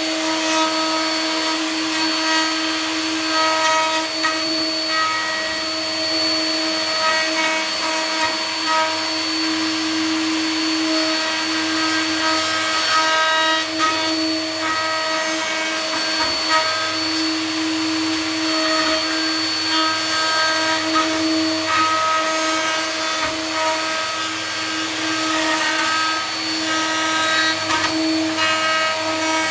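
Plunge router running at speed, its bit cutting a lock mortise into the edge of a wooden door: a steady whine whose strength wavers as the bit is fed into the wood.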